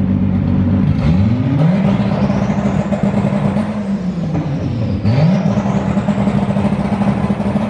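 Turbocharged VR6 engine of a Volkswagen Golf Mk3 idling, then revved up about a second in and held high. It drops back near the fourth second and is revved up and held again about five seconds in. A high turbo whistle rises and falls with the revs.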